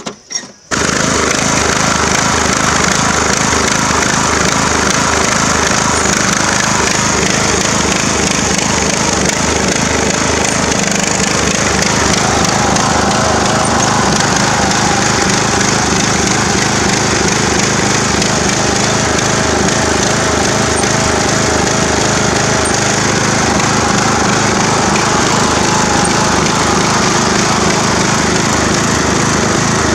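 Craftsman riding lawn mower engine running hard and loud under load as the mower churns through mud, with a rapid, even pulsing and a slightly wavering pitch. It starts abruptly about a second in.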